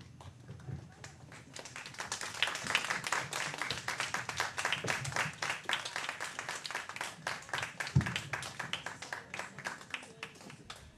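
Audience applauding between songs: the clapping builds over the first couple of seconds, then thins out and dies away near the end. A single low thump sounds about eight seconds in.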